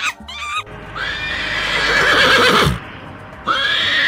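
Horse whinnying: one long neigh starting about a second in and lasting nearly two seconds, then a second whinny starting near the end.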